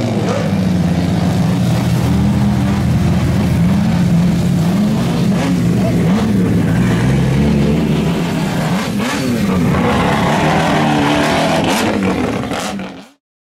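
Loud car engine running and being revved several times, its pitch rising and falling over a steady exhaust rumble. It cuts off suddenly near the end.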